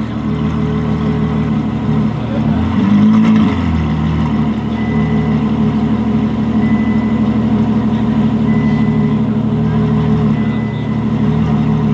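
Ferrari F12 Novitec N-Largo S's V12 idling steadily, with one short blip of the throttle about three seconds in. A faint high beep sounds on and off several times in the second half.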